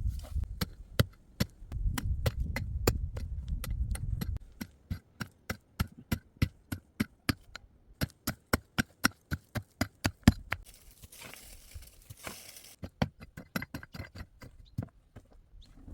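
A fast, regular series of sharp knocks, about three a second, with a low rumble under the first few seconds and a short rustling hiss a little past the middle.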